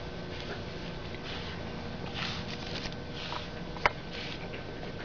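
Pug puppies sniffing and scrabbling about, with soft breathy snuffles and one sharp click just before four seconds in.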